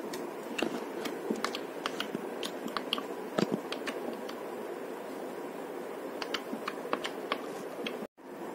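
Glitter slime being poked and pressed with a plastic slime tool: irregular sharp clicks and small pops, over steady background noise.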